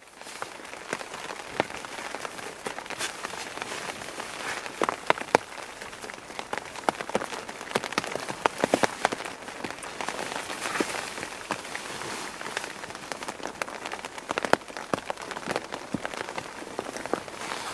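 Rain falling on a canvas tarp shelter, heard from inside: a dense, irregular patter of drops with some louder single taps among them.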